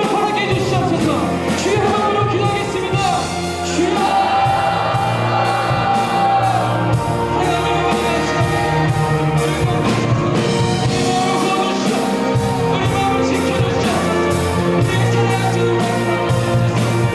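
Live worship band playing with singing: full-band drums, bass, guitar and keys under sung vocals, with some shouts in a large hall.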